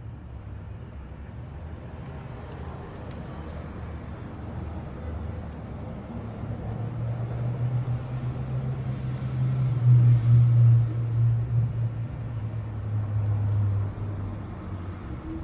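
Low engine rumble of a motor vehicle, building to its loudest about ten seconds in and then easing off.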